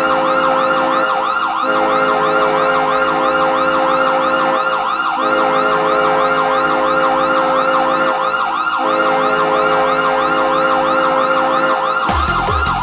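Roller hockey goal horn: long, loud blasts on a steady horn broken by short gaps about every three and a half seconds, with a fast wailing siren sweeping up and down over them. Near the end it switches to a goal song with a thumping beat.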